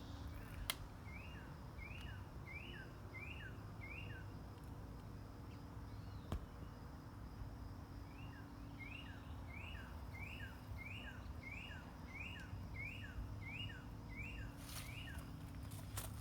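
A songbird repeating a quick two-part note, a short rising stroke with a lower falling one, about every 0.7 seconds: a run of five, a pause, then a longer run of about a dozen. Two sharp ticks, one near the start and one in the middle, stand out above it.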